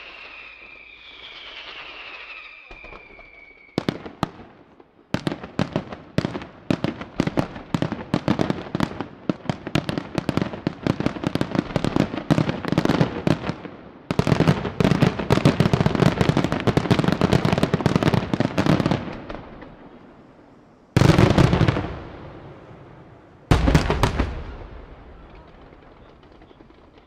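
Aerial fireworks display. It opens with a few seconds of falling whistles, then a long, rapid barrage of bangs and crackle that gets louder about halfway through, and ends with two heavy single booms a couple of seconds apart, each dying away.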